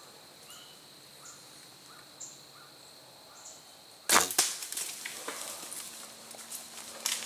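A bow shot about four seconds in: one sharp crack as the arrow is released and strikes a doe, followed by a run of snaps and rustles in dry leaf litter.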